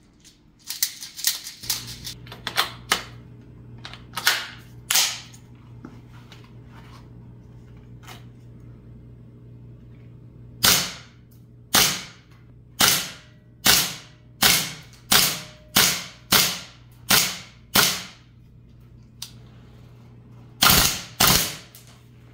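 STS K1A airsoft rifle firing single shots, each a sharp crack: a scattered few early on, then a steady run of about eight shots a little under a second apart, and a quick pair near the end.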